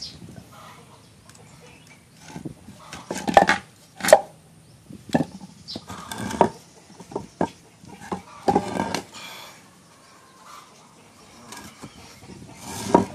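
Pieces of ebony billet being handled, giving a series of sharp, irregular wooden knocks and clunks, several with a little ringing after them.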